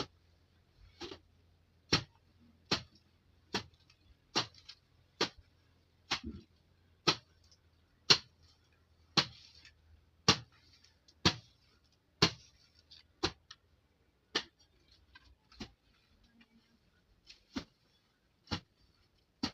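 Hand weeding tool chopping into soil and grass, a sharp chop about once a second in a steady working rhythm.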